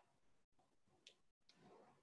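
Near silence: faint room tone with a brief, faint high squeak about a second in. The sound cuts out completely for an instant twice.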